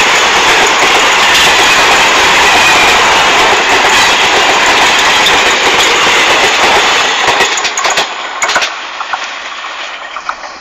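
Passenger train passing close by on the rails: a loud, steady rush of wheel and track noise that dies down about seven seconds in, leaving a few sharp clicks and knocks.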